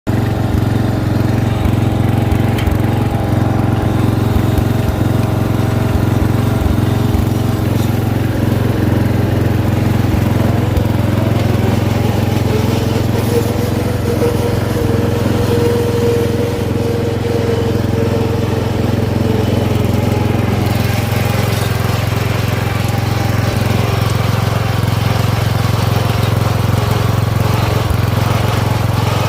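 Lawn mower engine running steadily as the mower is driven, with a fainter whine that rises and falls in pitch around the middle.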